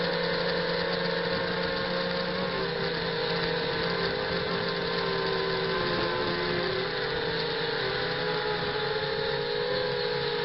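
Quadcopter's brushless motors and propellers whining in flight, picked up by the onboard camera. Several close pitches waver and drift apart as each motor speeds up and slows, over a steady hiss of prop wash and wind.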